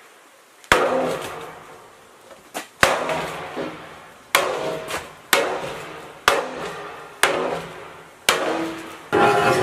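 Hammer blows on a rusty steel lathe base plate, seven strikes about a second apart, each ringing briefly. Near the end a steady hiss of sandblasting starts.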